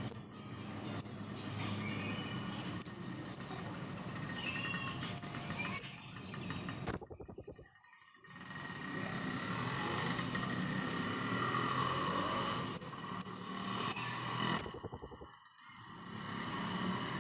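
Blue-crowned hanging parrot (serindit) giving short, sharp, high-pitched calls, mostly in pairs, broken twice by a rapid trill about a second long.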